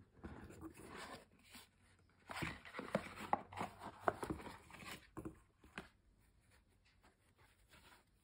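Cardboard gift box being opened by hand: rustling and scraping of the card with small taps and clicks, busiest in the middle, then only faint handling near the end.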